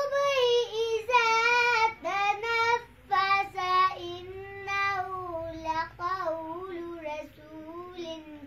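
A young girl reciting Quran verses in Arabic in a melodic chant (tilawat), with long held notes in phrases that sink slowly in pitch.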